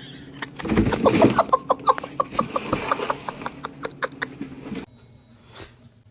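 A cat chattering at prey it can see through a window: a rapid run of short clicking chirps, about six a second, that cuts off suddenly about five seconds in.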